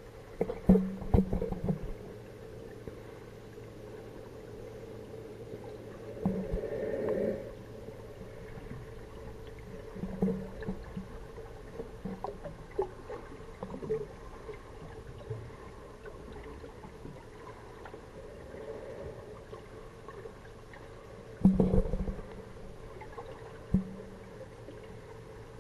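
Underwater sound in a large aquarium tank, picked up by a submerged camera: a steady low hum with scattered muffled knocks and short bursts of water noise, the loudest near the start and again near the end.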